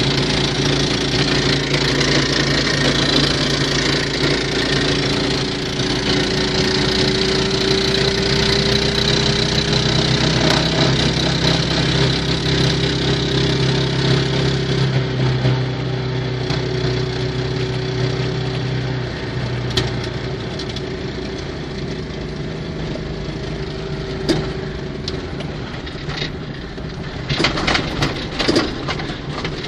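Single-cylinder 6.5 hp walk-behind-tractor engine, fitted in a VAZ 2109 car, running at a steady speed; its hum fades out about two-thirds of the way through. A few sharp clicks or knocks follow near the end.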